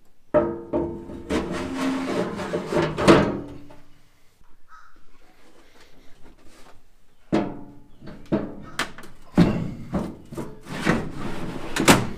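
A sheet-metal fuel cell box and a Radium fuel cell being handled and slid into their cradle: irregular clunks, knocks and scraping of metal against metal. They come in two spells, with a quieter pause of about three seconds between them.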